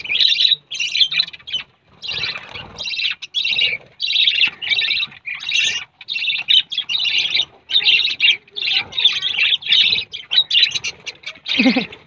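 A flock of budgerigars chattering: a dense, unbroken stream of warbles and chirps from many birds at once.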